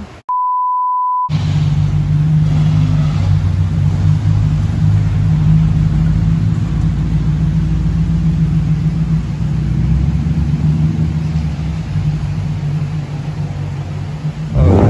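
A bleep tone edited in for about a second, then the BMW E60's N62 V8 running at a steady low idle through its custom-made exhaust: a deep, even drone.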